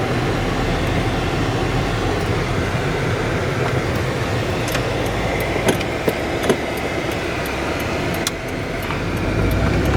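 2016 Subaru WRX's turbocharged flat-four engine and tyre noise while driving on the road, heard from inside the cabin as a steady low hum with a few light clicks. No unusual noises are heard from the freshly rebuilt car.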